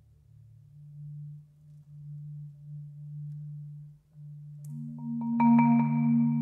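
Solo concert marimba played with mallets: quiet low notes swelling and fading, then about five seconds in a louder cluster of strokes whose higher notes ring on.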